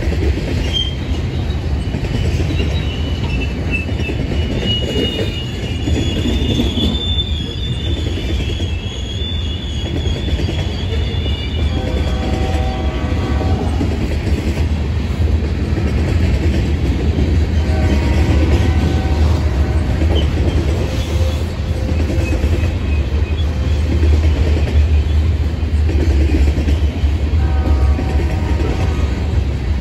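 Train rolling past with a steady low rumble and high-pitched wheel squeal. The squeal runs for the first dozen seconds, then comes back as shorter, lower squeals around the middle and near the end.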